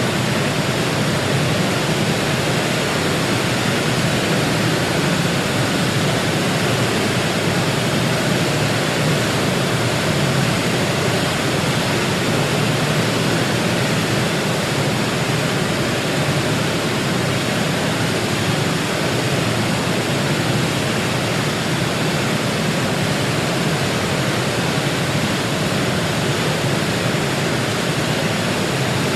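Large waterfall: a steady, dense rush of falling water with a deep low rumble.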